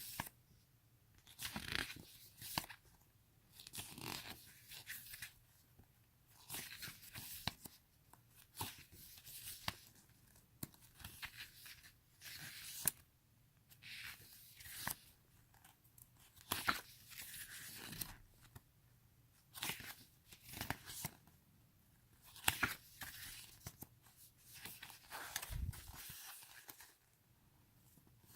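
Pages of an album photo book being turned one after another by hand, a short papery swish every second or two.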